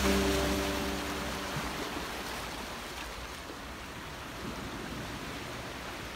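Sea waves washing among shoreline rocks, a steady rushing hiss. A few sustained notes of background music fade out in the first second and a half.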